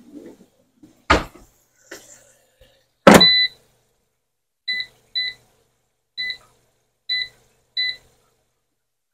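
Two knocks, then a loud knock with a held electronic beep about three seconds in, followed by five short beeps of the same pitch at uneven intervals: a kitchen appliance's keypad being pressed to set it.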